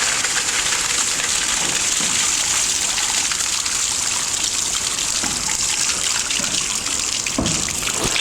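A shower running, its water spraying in a steady rush, with a couple of brief low bumps near the end.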